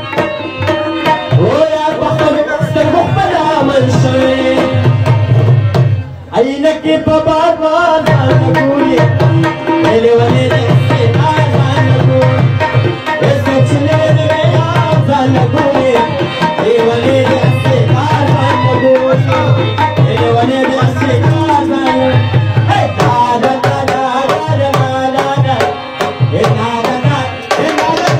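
Dance music played on a hand drum in a steady, driving rhythm, with a wavering melody over it. The music breaks off briefly about six seconds in, then picks up again.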